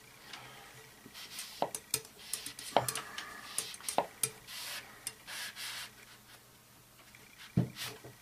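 Oiled paper-towel swab being worked through the steel compression tube of a Crosman Storm XT spring-piston air rifle on a cleaning rod: irregular rubbing and scraping, with a few sharp knocks of the rod against the tube.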